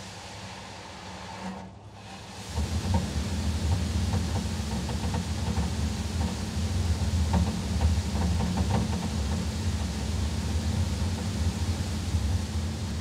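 Belanger Saber touchless car wash heard from inside the car's cabin: after a short lull, water spray starts hitting the body and windows about two and a half seconds in and keeps up as a steady hiss over a low hum from the wash machinery.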